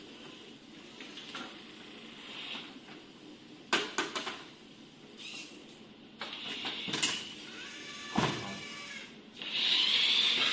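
A remote-controlled robot arm and gripper at work: short motor runs with a cluster of clicks and clunks about four seconds in, a brief whine near the end.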